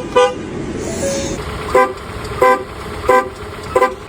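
Car horn tooting in short, uneven blasts as a dog presses the horn pad. One toot at the start, a pause of about a second and a half, then about five toots roughly two-thirds of a second apart.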